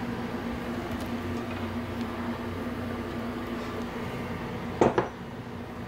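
A steady low mechanical hum, then two sharp knocks close together about five seconds in as a ceramic mug is set down on a stone countertop.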